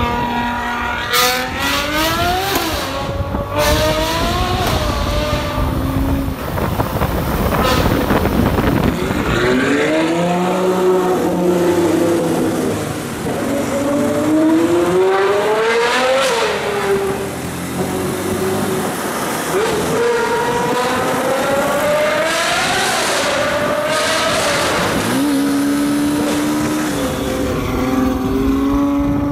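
Ferrari 812's V12 engine revving and accelerating in traffic, its pitch climbing then dropping several times, then holding a steady note near the end.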